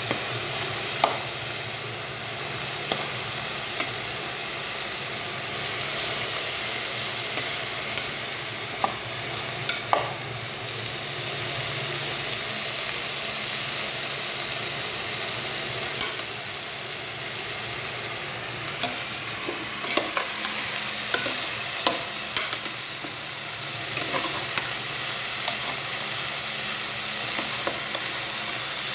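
Chopped beef tripe sizzling as it fries in an aluminium pot. A spatula scrapes and knocks against the pot now and then as it is stirred.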